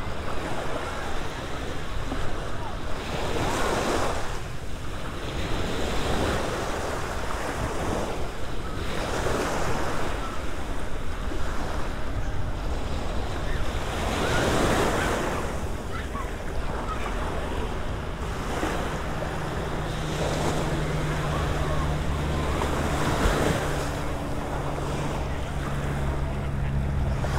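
Small waves washing up and breaking on a sandy shore, one swell every two to three seconds, with wind rumbling on the microphone. A faint low steady hum joins in during the last third.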